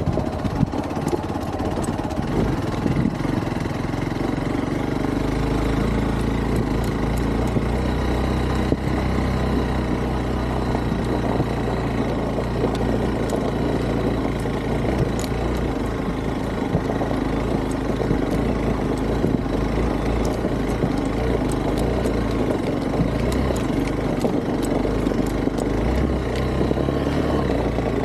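Hero Xpulse 200 4V's single-cylinder four-stroke engine running steadily as the bike rides over rough ground, with scattered sharp clicks.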